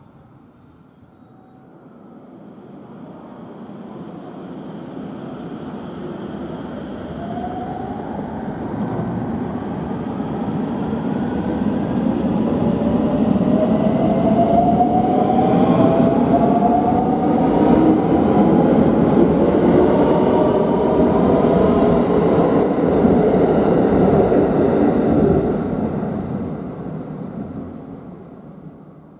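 521-series electric multiple unit, two coupled sets, running past: wheel-on-rail noise that builds to a loud pass, then fades near the end. Several whines rise in pitch together as the motors speed the train up.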